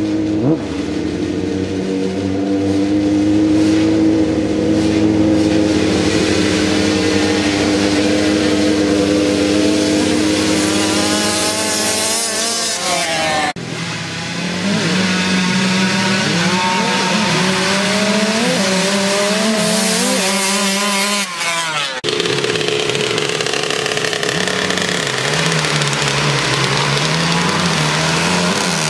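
Small dirt-bike engines running steady for about the first half, then revving up and down repeatedly as the bikes accelerate away on dirt. The sound breaks off suddenly twice.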